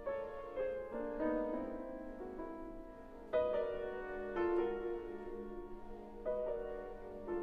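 Background music: soft piano playing slow chords and melody notes.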